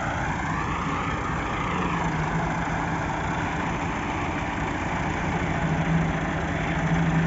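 Massey Ferguson 385 tractor's diesel engine running steadily at low revs, a continuous drone that swells slightly about two seconds in and again near the end.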